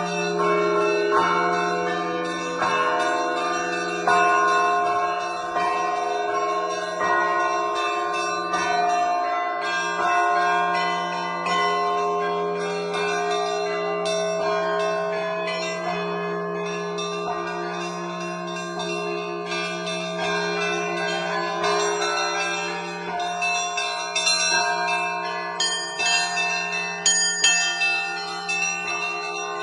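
Russian Orthodox church bells rung by a single bell-ringer: many bells struck in overlapping rhythmic patterns over the steady hum of a low bell. The higher bells strike sharper and louder near the end.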